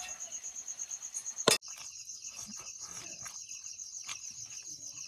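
Insects chirring outdoors in a steady, high-pitched pulsing trill, with a sharp click about a second and a half in.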